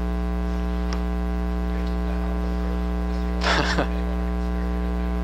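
Steady electrical mains hum with many evenly spaced overtones, running under a pause in a lecture recording. A short burst of a voice breaks in about three and a half seconds in.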